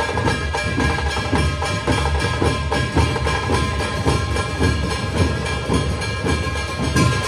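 A Puneri dhol-tasha troupe playing live: many large barrel dhols struck with sticks, together with tasha drums, in a fast, dense, steady rhythm. The sound is loud and continuous.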